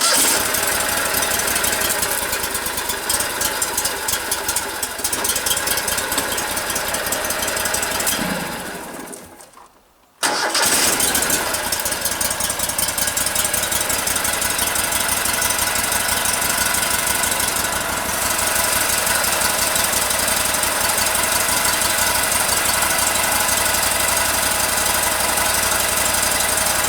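Wood-Mizer sawmill's gasoline engine catches and runs for about eight seconds, fades out and dies, then is restarted about ten seconds in and keeps running steadily.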